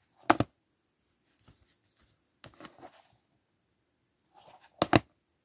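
Plastic movie cases clacking as they are handled, two sharp double clacks, one near the start and one near the end, with faint rustling between.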